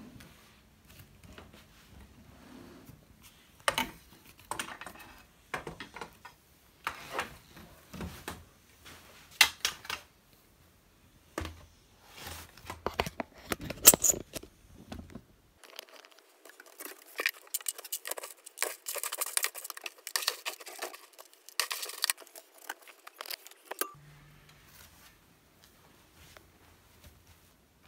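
Cat litter box being cleaned out: a run of irregular scrapes, rattles and clicks as litter is scooped and sifted, with a sharp loud clack about halfway through.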